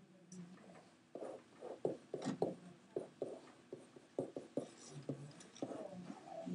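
Faint, irregular taps and scratches of a stylus writing on an interactive whiteboard, a few strokes a second.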